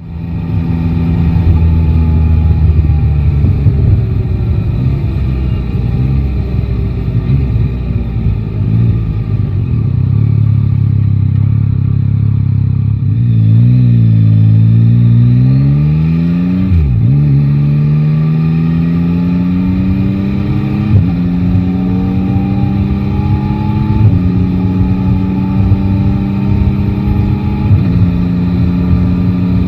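Three-cylinder motorcycle engine heard from the rider's seat, with wind and road noise throughout. The revs dip and rise about halfway through, then the engine accelerates through the gears, its pitch climbing and dropping back at each of three upshifts.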